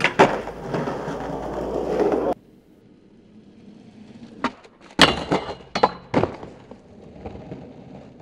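Skateboard popped and landed onto a metal handrail with sharp clacks, then the trucks grinding along the rail for about two seconds before the sound cuts off abruptly. After a quiet stretch, a second run of several sharp board clacks as the skateboard pops and lands on concrete, then the wheels rolling away.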